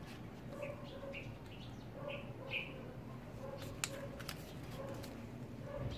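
Faint animal chirping: short, high calls repeating about every half second, with a few sharp clicks a little past the middle.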